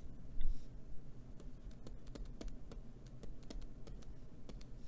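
Light, irregular clicks and taps of a stylus writing on a tablet screen.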